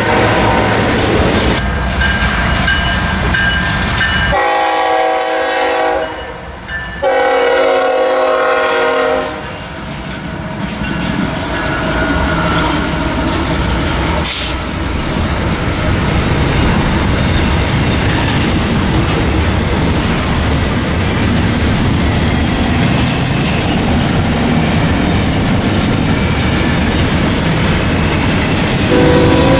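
A diesel freight locomotive's air horn sounds several blasts in the first nine seconds. The train then passes close by with a steady rumble and wheel clatter on the rails. The horn sounds again near the end.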